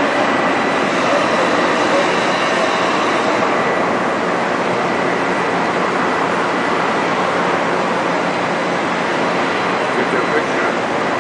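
Overhead bridge crane running while it carries a heavy crane trolley on its hook: a loud, steady mechanical noise with a faint, steady high whine.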